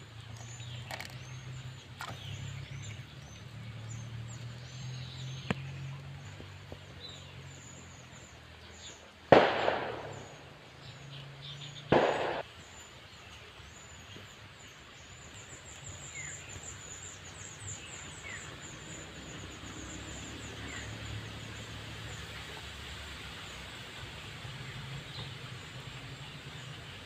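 Outdoor ambience with steady, repeated high-pitched chirping of small animals in the background. Two loud, brief thumps come about nine and twelve seconds in, with a few faint clicks earlier.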